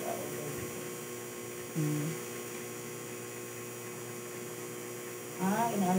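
Wireless rotary tattoo pen machine running with a steady hum as the needle works the skin.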